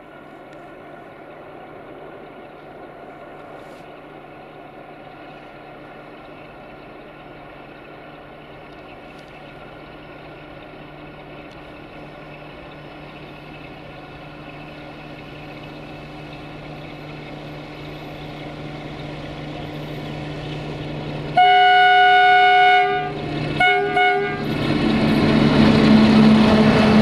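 Diesel-electric freight locomotive (Romanian LDE2100/060-DA with a Sulzer engine) running under load, its engine drone slowly growing louder as the train approaches. Near the end the locomotive's horn sounds one long blast of about a second and a half, then two short blasts. The loud rumble of the locomotive and wagons passing close by follows.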